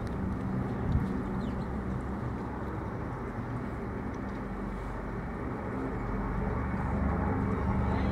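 Steady low drone of a formation of military aircraft approaching overhead, growing slowly louder toward the end.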